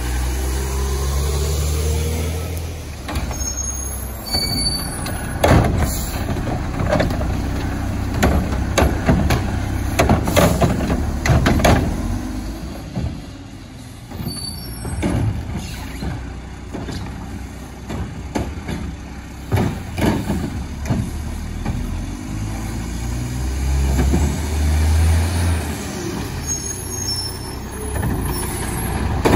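Mack LE front-loader garbage truck's diesel engine pulling away and driving, with many clanks and rattles from the body and carry can, then its air brakes as it pulls in to stop.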